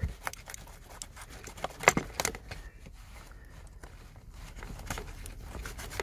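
Seat belt webbing being cut through at its floor anchor: irregular snips and short tearing rasps, the sharpest a pair about two seconds in.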